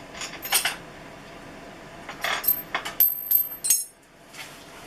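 Metal parts clinking as a motorcycle rear axle is worked out of the swingarm: sharp knocks near the start, then a cluster of clinks about two to three and a half seconds in, a couple of them ringing briefly, as the spacers and chain adjusters come loose.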